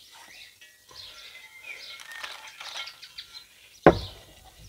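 Birds chirping and calling, short high chirps and little glides. A single sharp knock stands out near the end.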